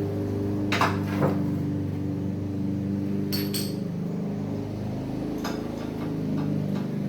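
Wrench clinking and knocking against metal bolts and suspension parts, with two louder knocks about a second in and a pair of sharp, bright clinks midway, over a steady low hum.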